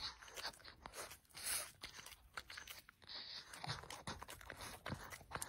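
A Boston terrier nibbling and chewing a flat round cake held out by hand: close-up, faint, irregular little bites and crunchy chewing.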